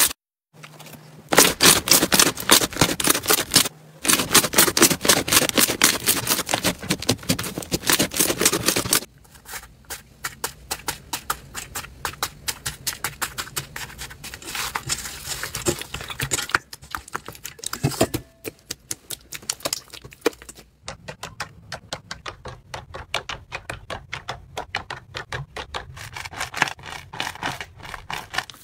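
Slime being pressed and worked by hand, giving rapid crackling and popping clicks, in several short clips that cut from one to the next. The clicking is loudest for the first nine seconds or so, then softer.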